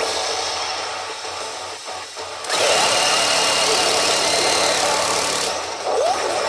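Pachinko machine sound effects: background machine sound, then a loud, dense rattling-hiss effect with a few steady high tones that starts abruptly about two and a half seconds in and cuts off about three seconds later.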